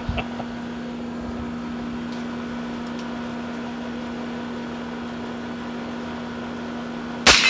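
Steady hum of an air conditioner unit, then a single sharp shot from a Heritage Rough Rider .22 revolver near the end.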